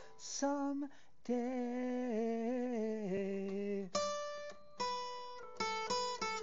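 Acoustic guitar picked note by note, with a man's voice singing a long held line with vibrato from about a second in until about four seconds, its pitch dipping near the end; after that the guitar carries on alone.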